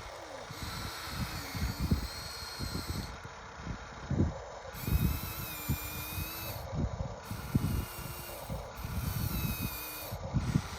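Small electric motors of a radio-controlled excavator whining, their pitch shifting up and down as the machine moves, over irregular low thumps.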